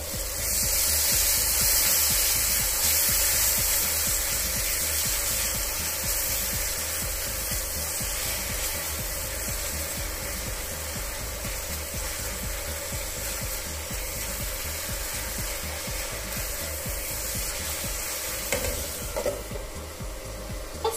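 Tomatoes, onion and garlic frying in olive oil in an open wok, sizzling loudly while a spatula stirs them. Near the end a few knocks come as the glass lid goes back on, and the sizzle drops.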